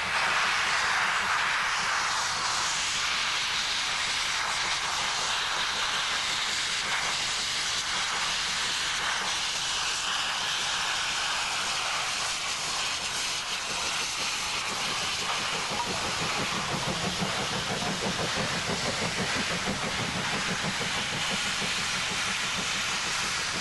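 Steam locomotive Bahamas, an LMS Jubilee-class 4-6-0, hissing steam steadily and loudly. About two-thirds of the way through, a lower rumble with a quick pulse joins in.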